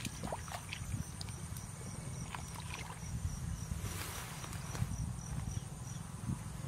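Bare feet and hands sloshing and groping in shallow muddy water, with small splashes and squelches. Underneath run a steady low rumble and a faint high chirp repeating about three times a second.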